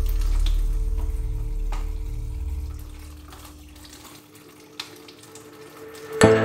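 Water running from a kitchen tap onto hands over a steel sink, with one sharp click about five seconds in. Background music fades down past the middle and comes back loud just before the end.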